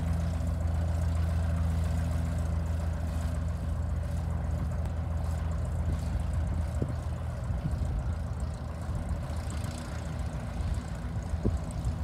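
Light propeller aircraft's piston engine running at idle, a steady low drone with several pitched layers that eases off a little past halfway. A few short thumps come near the end.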